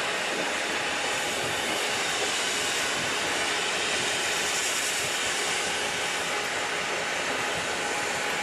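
Two diesel freight locomotives running under power as they lead a train of hopper cars, a steady, unchanging engine and rail noise with a faint whine.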